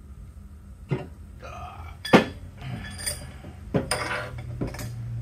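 Heavy steel parts clanking: a Dana 60 differential carrier with its ring gear coming out of the axle housing and being set on a steel workbench among tools. There are four sharp metal knocks with short ringing and rattling between them, the loudest about two seconds in.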